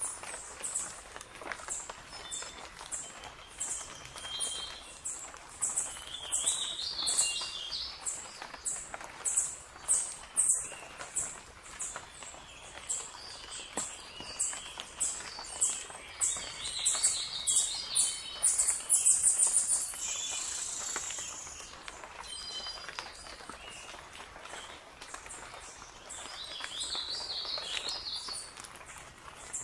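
Forest ambience of calling birds: a short high-pitched chirp repeating about twice a second, with brief bursts of warbling song now and then.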